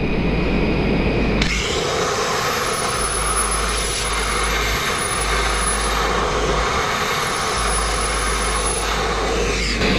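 Sandblasting nozzle blasting abrasive onto a stone sill: a steady, loud hiss of compressed air and grit that turns harsher and brighter about a second and a half in. The blaster judges the abrasive feed to be running way too high, which he puts down to water getting into the blast pot because no air cooler is fitted.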